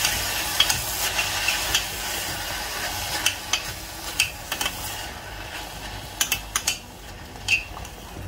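A metal spoon stirring and scraping sautéing spinach in a stainless steel pot, with sharp clicks of spoon on metal. A sizzle under it dies down about five seconds in.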